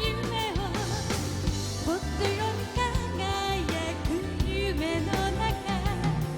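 Live band music: a sung melody with vibrato over steady drums and bass.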